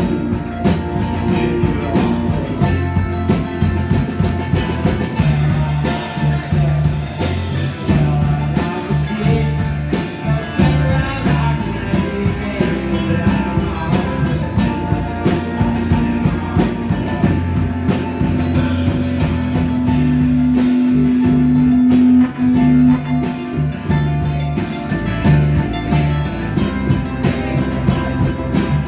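Live folk-rock band playing an instrumental passage: guitars and mandolin picking over bass and drums, with one long held note through the middle.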